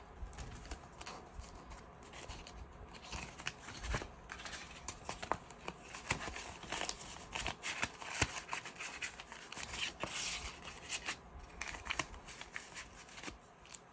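Banknotes and stiff paper pages rustling and crinkling as they are handled, with scattered light clicks and taps. The handling noise is busiest about halfway through.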